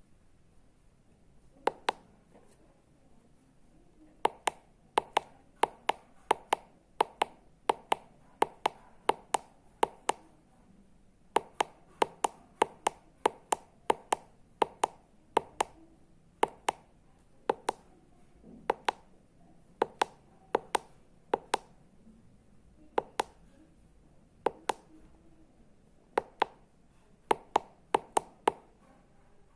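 Small tactile push buttons clicked over and over, each press a sharp click, many in close press-and-release pairs. They come at about one or two a second, with brief pauses now and then.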